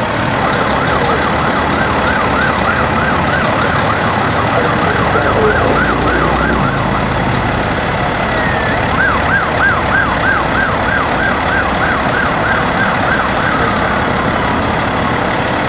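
Emergency vehicle siren on its fast yelp setting, sweeping up and down about three or four times a second. It sounds in two runs with a short break between them, over a steady rushing noise.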